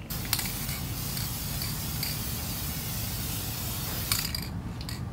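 Aerosol spray can of gloss clear coat hissing in one continuous spray for about four seconds, then stopping, followed by a few short spurts just before the end.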